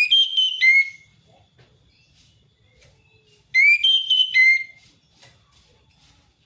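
Orange-headed thrush singing: two phrases of clear, whistled notes, each about a second long, about three and a half seconds apart. This is the loud, open wild-type song used as a lure to set other orange-headed thrushes singing.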